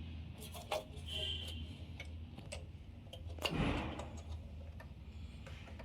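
Light clicks and taps of hands handling metal server parts, with a brief scrape about three and a half seconds in, over a low steady hum.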